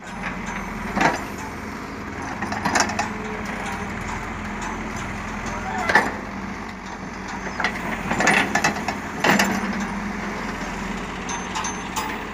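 CAT backhoe loader's diesel engine running steadily while its bucket digs soil, with several sharp metallic knocks and clanks from the bucket and arm.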